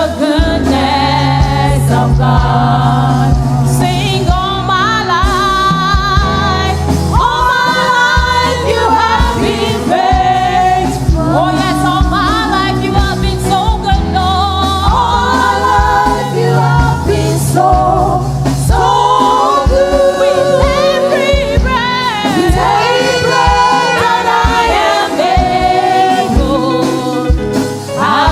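Church praise team singing a gospel worship song with instrumental accompaniment and a sustained bass line.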